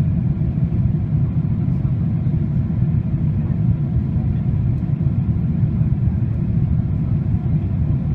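Steady low rumble of jet engines and rushing air heard inside an airliner cabin on its descent to land, with a faint steady tone above it.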